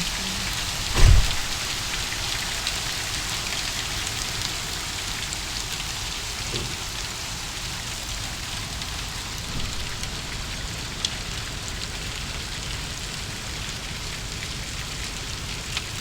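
Ice rain falling steadily, a dense patter of small icy impacts, with one low thump about a second in.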